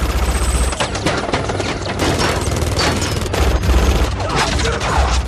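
Heavy automatic gunfire in a film action scene: dense, rapid volleys of shots and impacts running almost without a break over a low rumble.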